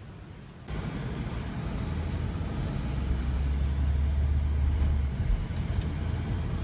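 A motor vehicle driving past on the street: the low engine drone and road noise start abruptly, grow louder, peak about four to five seconds in, then ease off.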